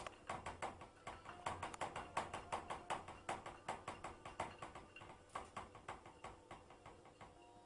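A cat pawing at the inside of a front-loading washing machine's drum and door: a quick, uneven run of light taps and clicks, about four a second, growing fainter near the end.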